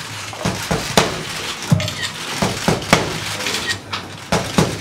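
Boxing gloves smacking a focus mitt in quick combinations: sharp slaps in clusters of two or three, about nine in all.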